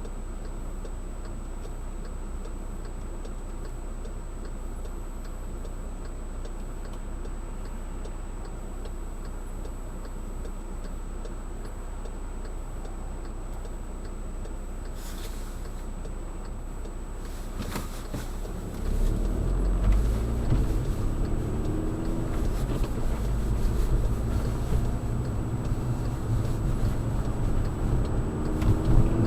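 Steady low car hum with a regular faint ticking, typical of a turn signal. At about 19 seconds the Volkswagen GTI's engine pulls away: it gets louder, its pitch rises and falls, then climbs again near the end.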